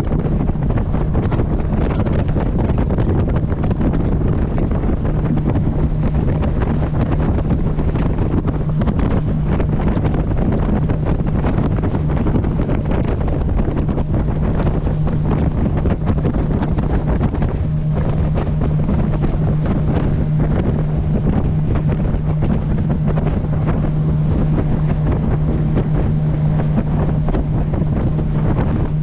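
Motorboat engine running at a steady cruising drone while under way, with wind buffeting the microphone and water rushing past the hull. The engine hum strengthens about five seconds in and again past the middle.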